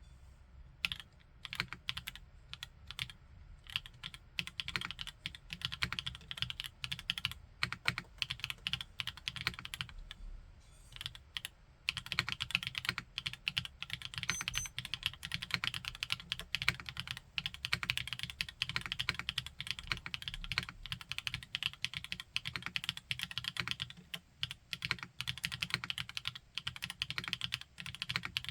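Typing on a Qwertykeys NEO80 mechanical keyboard with Gateron Modern Gray switches in a raw aluminium case. Scattered keystrokes come first, then a short pause about eleven seconds in, then fast, continuous typing.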